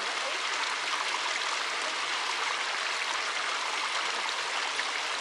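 Shallow creek running over stones: a steady, even rush of water.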